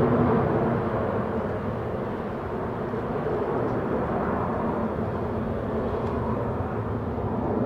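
Jet noise from an Embraer E190's two GE CF34-10E turbofans at takeoff power as the airliner climbs away. It eases off in the first couple of seconds, then holds steady.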